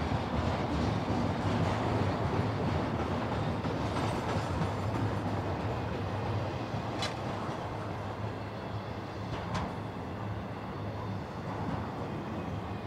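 Freight train's double-stack container and trailer cars rolling past close by: a steady rumble of steel wheels on rail, with two sharp clicks about seven and nine and a half seconds in.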